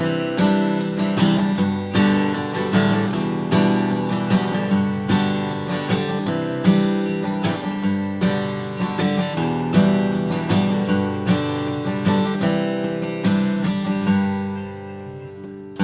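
Custom shop Martin Style 28 steel-string acoustic guitar, with a bearclaw Sitka spruce top and Madagascar rosewood back and sides, being played: a steady run of picked notes and strummed chords, ending with a chord left ringing and fading for the last two seconds or so.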